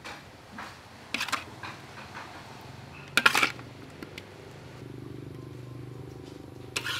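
A spatula scraping and scooping stir-fried razor clams out of a metal wok into a bowl, with short scrapes and clinks about a second in, louder ones about three seconds in, and again near the end. Under them, from about halfway, a low steady hum.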